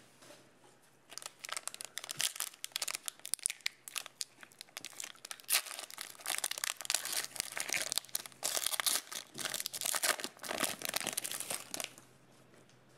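Foil wrapper of a Donruss football trading-card pack crinkling and tearing as it is ripped open by hand, a dense crackle from about a second in that stops near the end.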